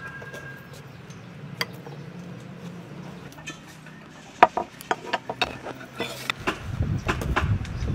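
Kitchen scissors snipping through crusty baguettes: a quick run of sharp snips from about halfway in, with a low rumble near the end.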